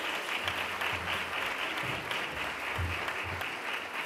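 Audience applauding steadily after a speech, with a few low thumps underneath.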